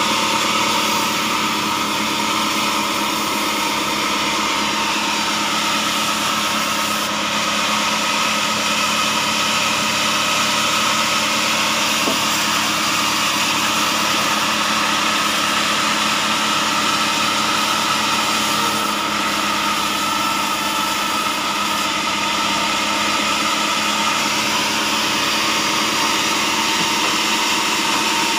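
Engine-driven vertical band sawmill running steadily, with a constant mechanical drone and several steady tones.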